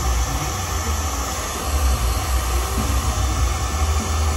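Handheld hair dryer running, a steady rush of blown air with a low, fluttering rumble underneath.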